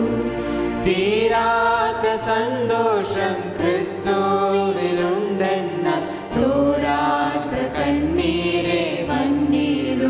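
A Christian hymn sung by a small group of singers in harmony over instrumental backing, one phrase ending and the next beginning about six seconds in.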